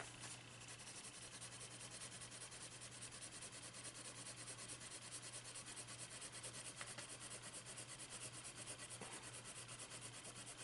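Caran d'Ache Full Blender pencil rubbing back and forth over wax coloured-pencil layers on paper in quick, even strokes, faint and scratchy-soft, blending the colour.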